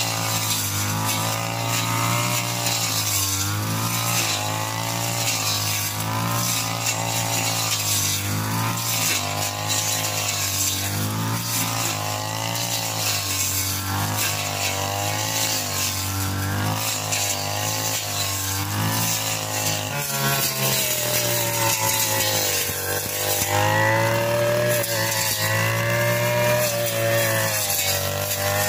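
Backpack brush cutter's small petrol engine running at high speed while cutting grass, its pitch dipping and recovering every second or two as the spinning blade bites into the grass on each swing.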